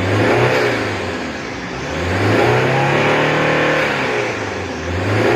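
Toyota Prado's diesel engine being revved, its pitch rising and falling about three times.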